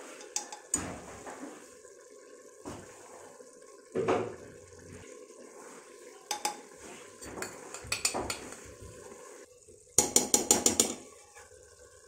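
Metal spoon and ladle clinking and scraping against an aluminium pressure cooker while keema is stirred, with scattered clicks and a quick run of about seven loud clanks about ten seconds in.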